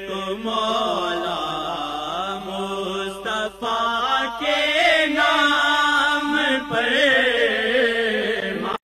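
A voice singing a slow devotional chant with a wavering, ornamented melody, in the style of an Urdu naat, with a short break about three and a half seconds in.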